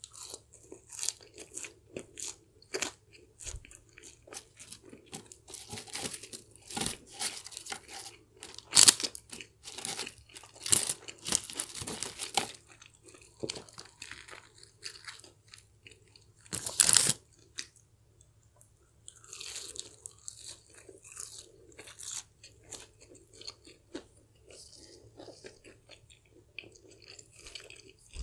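Close-up eating sounds of KFC French fries dipped in nacho cheese sauce: irregular crisp crunches and wet chewing, with the loudest crunches about a third of the way in and again a little past halfway.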